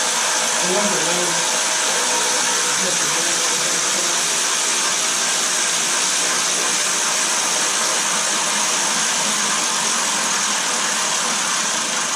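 A shop tool running steadily at one speed: a loud, even hiss with a faint low hum underneath.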